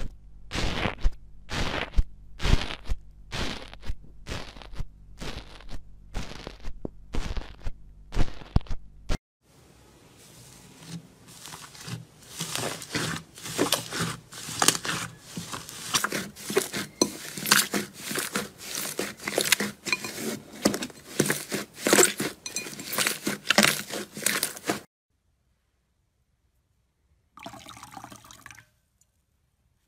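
Slime being worked by hand. First there are sharp crackling pokes about twice a second as a tool jabs into a pot of foamy, multicoloured material. Then comes a longer run of dense crackling and popping as hands press thick yellow slime, and after a pause a brief wet squish of clear slime.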